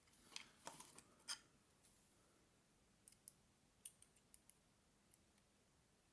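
Faint, scattered small metallic clicks of a lock pick and tension wrench working the pins inside a Silverline 50 mm padlock: a few in the first second and a half, then a short cluster a little past halfway.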